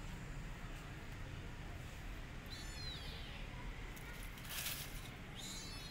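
Two short, high calls from a small animal, each falling in pitch, about two and a half seconds in and again near the end. Between them comes a brief crunch of dry leaves, all over a steady low rumble.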